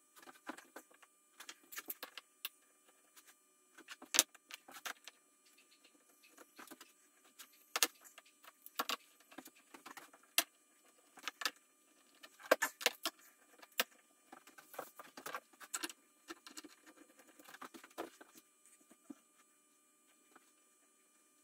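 Small metal bar clamps being slid onto plywood and screwed down by hand: irregular metallic clicks, clinks and short rattles, with a few sharper knocks.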